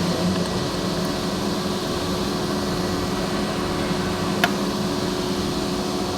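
CNC lathe running steadily, a machine hum with several steady tones, with one sharp click about four and a half seconds in.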